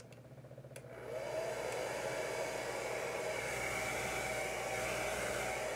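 Handheld blow dryer switched on about a second in, its motor spinning up and then blowing steadily with an even whooshing hiss.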